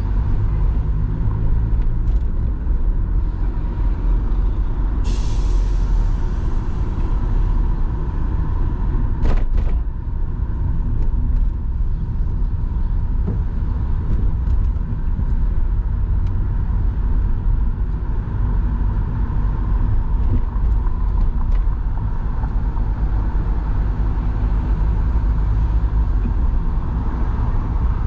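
City street traffic heard from a moving car: a steady low rumble of engines and road noise, with a short hiss of a bus's air brakes about five seconds in and one sharp click a little after nine seconds.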